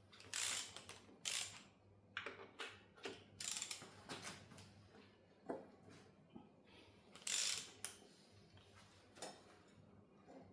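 Irregular metallic clicks and clinks of hand tools and parts being handled while an F6A engine is taken apart. There are about a dozen short, separate sounds with uneven gaps between them.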